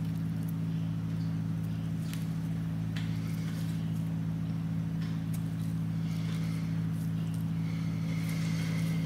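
A steady low hum that holds one unchanging pitch, with a few faint small clicks over it.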